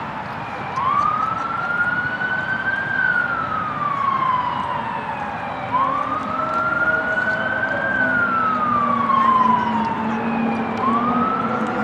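Emergency vehicle siren wailing in slow sweeps: each rise takes about two seconds and each fall about three, and the cycle repeats about every five seconds. A low steady hum joins in during the second half.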